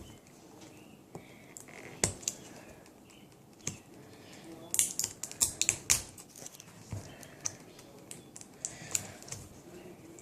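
Light plastic clicks and taps, scattered and in a quick cluster about five seconds in, from a contact lens solution bottle and its cap being handled and opened.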